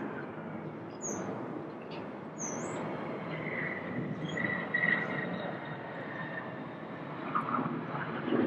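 Jet airliner engine noise at an airport, a steady rush with a faint whine in the middle. A bird chirps briefly about four times in the first half.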